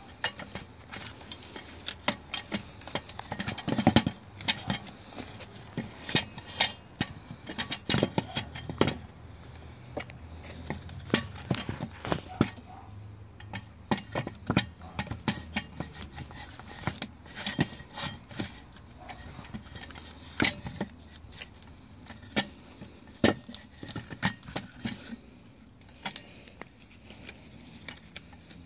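Irregular metallic clicks and clinks of a wrench and socket tightening the propeller nut on a Mercury outboard's Flo Torq II hub, the nut being brought up to its 55 lb-ft torque setting.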